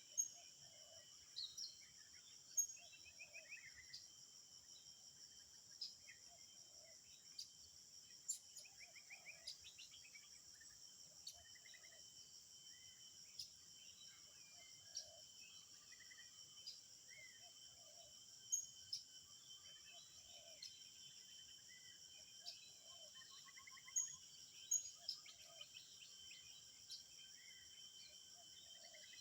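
Faint forest ambience: a steady high-pitched drone of insects, with scattered short bird chirps and soft calls repeating every second or two, and a few small ticks.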